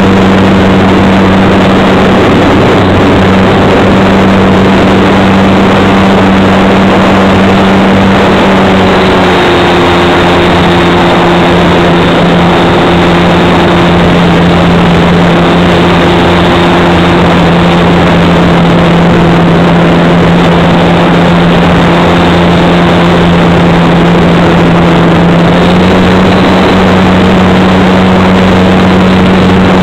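Parkzone SE5a RC model plane's electric motor and propeller running steadily, heard from a camera riding on the plane over a constant rush of noise. The drone eases down slightly in pitch about nine seconds in and comes back up near the end, as the throttle is eased back and then opened again.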